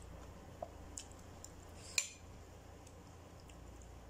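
A metal spoon clinks against a ceramic bowl a few times, the loudest clink about two seconds in with a short ring, over a low steady hum.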